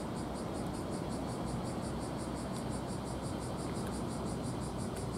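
An insect calling in a steady, even rhythm of high-pitched pulses, about five a second, over a constant low background noise.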